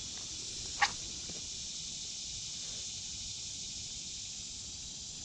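Steady high-pitched drone of summer insects, crickets or cicadas, with one sharp click or snap about a second in, as someone clambers down a weedy dirt bank.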